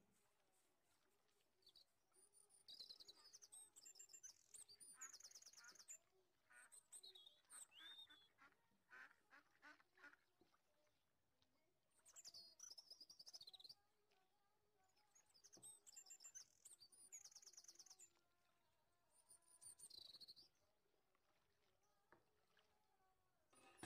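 Near silence, with faint bird chirps and trills coming in short bouts every few seconds.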